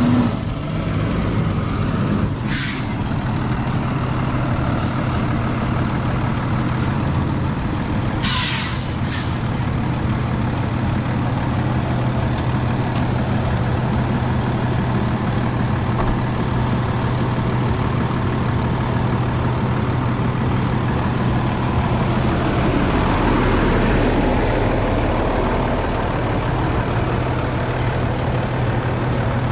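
Truck engine running steadily, with two short bursts of hissing air about two and a half and eight seconds in. The engine note rises briefly a little past twenty seconds.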